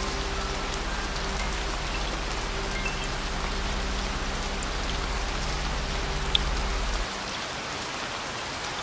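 Steady heavy rain falling. It is mixed with a soft, low sustained music chord that stops about seven seconds in, leaving the rain alone.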